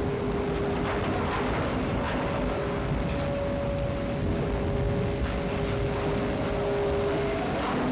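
Winches hauling a blast furnace on steel cables: a steady mechanical drone with held whining tones.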